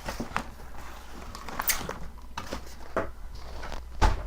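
Cardboard packaging being handled by hand: scattered taps, knocks and light rustling, with a louder knock near the end.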